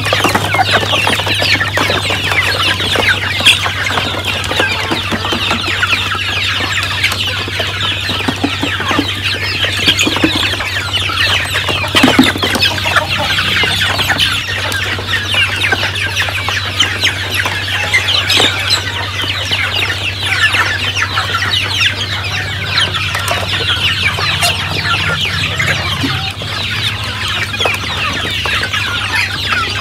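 A flock of chickens clucking continuously while they peck at live black soldier fly larvae in a plastic tray, with scattered sharp pecking taps, over a steady low hum.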